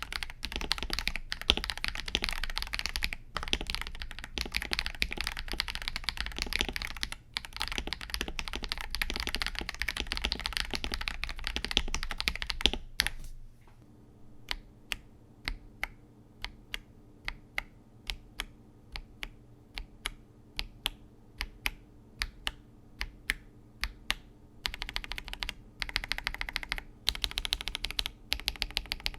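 Mechanical keyboard with Akko CS Vintage White switches being typed on quickly and continuously. About thirteen seconds in it changes to single, separate keystrokes about two a second, and fast typing resumes near the end.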